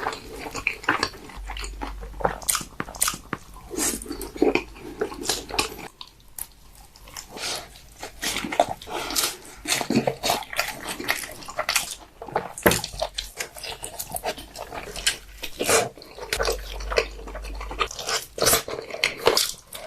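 Close-miked eating: irregular crunching, chewing and mouth smacking of food.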